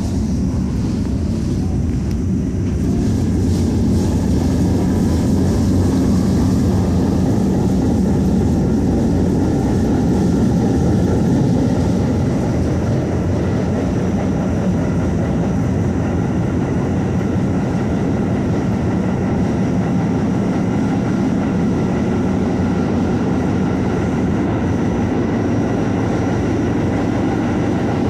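Staten Island Railway R44 subway car pulling out of a station and picking up speed, heard from inside the car: a faint rising traction-motor whine over the first few seconds, then a steady rumble of wheels on the rails.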